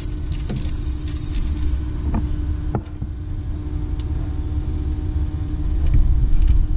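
A steady low rumble and hum, with a few light, sharp clicks of a hand wrench on the alternator's nuts and terminals.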